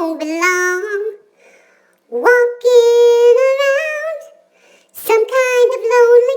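A dog howling along in three long, drawn-out notes, each sliding up at the start and then held, with short silences between them.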